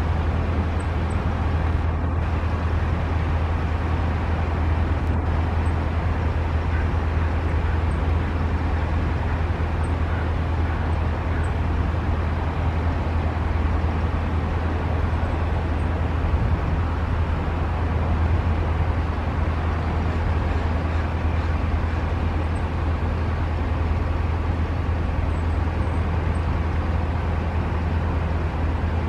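Steady road-traffic rumble with a strong low hum. A few faint, very short, very high, thin bird call notes are scattered through it, a small cluster of them near the end.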